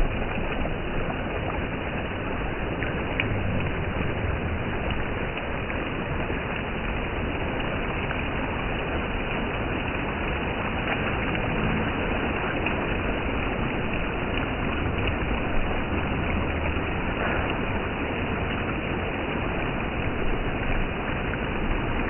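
Flowing water rushing steadily, an unbroken wash of noise with no pauses.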